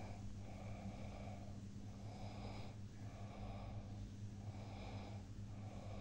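Faint breathing close to the microphone, soft rasping breaths coming about once a second, over a steady low hum.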